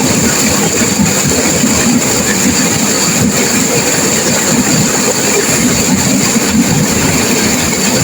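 Turbulent river water crashing and rushing, a loud, steady rush with no pauses.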